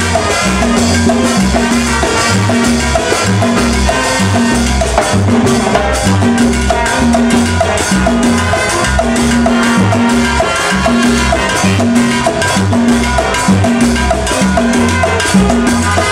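A papayera brass band playing live: trumpets and other brass over a red electric bass guitar, congas and a drum kit, in a steady Latin dance rhythm.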